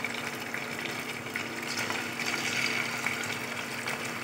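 Coated chicken pieces deep-frying in hot oil in a kadai: a steady sizzle with small scattered crackles.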